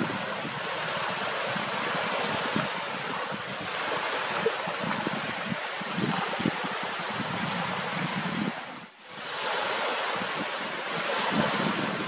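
Wind and lapping water at a reservoir shore, with gusts buffeting the microphone in irregular low thumps; the noise drops away briefly about nine seconds in.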